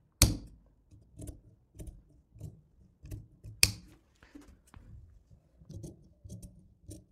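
Large tailor's shears cutting through fabric in a run of soft snips about every half second. Two sharp clacks stand out, one right at the start and one about three and a half seconds in.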